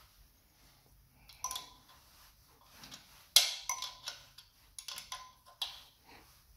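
A steel open-end spanner and screwdriver clinking against the valve adjusting screw and locknut on the rocker arm of a Steyr Puch two-cylinder engine while the valve clearance is set. The clicks are scattered, some ringing briefly, and the sharpest clink comes about three and a half seconds in.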